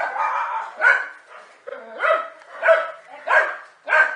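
Dogs barking at a snake they are attacking: about six sharp barks in quick succession, one every half-second or so.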